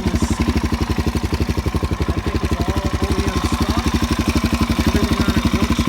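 2002 Suzuki DR-Z400S single-cylinder four-stroke engine idling steadily through a Yoshimura exhaust, about thirteen even pulses a second. It is a freshly rebuilt motor running on choke after a cold start.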